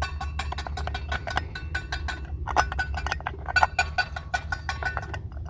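Small clicks and clinks of a plastic GU10 LED lamp being handled and twisted against the socket of a waterproof light fixture, many quick irregular ticks, over a steady low hum.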